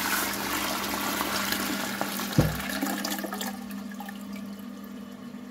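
Toilet flushing: water rushes into the bowl and swirls down the drain, fading steadily as the flush runs out. A single low thud comes about two and a half seconds in.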